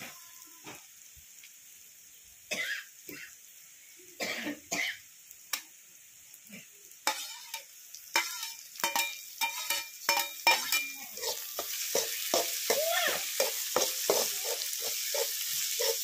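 Steel ladle scraping and knocking in an aluminium pot of frying onions. About halfway through, chicken pieces and giblets are scraped off a steel plate into the pot and stirred, and the sizzling grows louder as the meat starts to fry.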